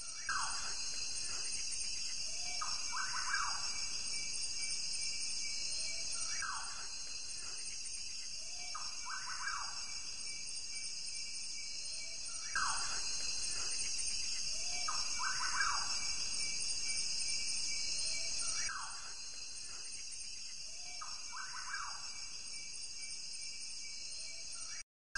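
Grassland ambience: a steady chorus of insects with a bird call repeating about every three seconds. The sound cuts out briefly near the end.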